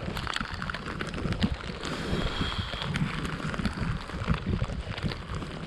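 Rain pattering, with wind buffeting the microphone: a steady low rumble overlaid with many small, irregular ticks of drops.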